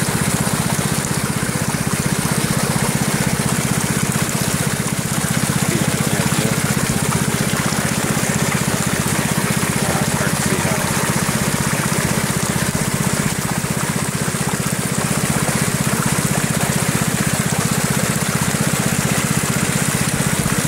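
Water rushing steadily down a high banker's sluice over its riffle mats, with the steady low drone of the engine-driven water pump feeding it running underneath.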